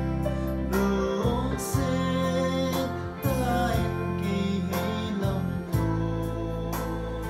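A man singing a worship song, accompanied by sustained chords on a Yamaha electronic keyboard.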